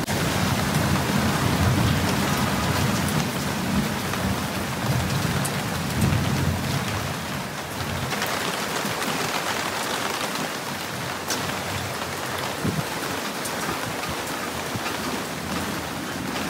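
Monsoon rain falling steadily on trees and foliage as a dense, even hiss. A low rumble underlies the first several seconds, then fades.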